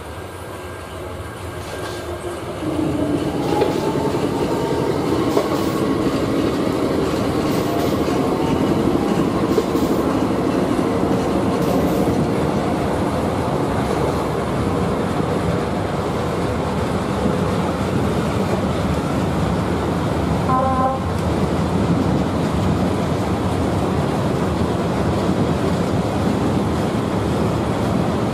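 A long freight train of flat wagons loaded with steel pipes rolling past at speed. The steady rolling noise gets louder about three seconds in, with ringing tones over the first third, and a brief high tone about two-thirds of the way through.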